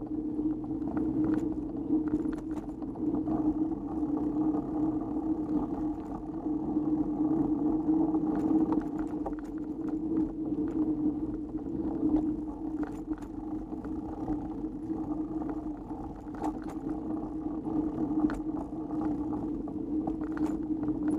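Mountain bike riding fast over packed-dirt singletrack: a steady hum and rumble from the rolling ride, with frequent sharp clicks and rattles as the bike goes over bumps.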